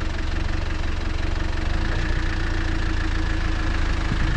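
Truck engine running steadily at low speed, a constant low rumble with a steady hum.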